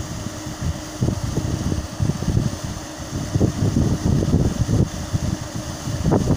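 A 2 HP paddle wheel aerator running at speed, its paddles churning the water and throwing up spray. Gusty wind rumble on the microphone is the loudest sound throughout.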